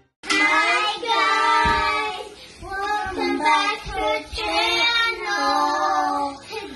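Children singing a short tune with held notes, starting after a brief gap.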